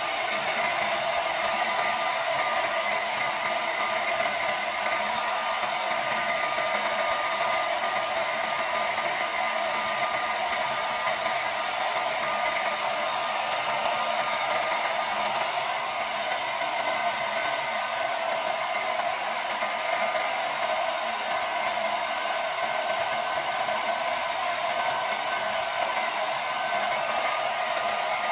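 Handheld hair dryer blowing steadily, a constant airy rush with a faint whine.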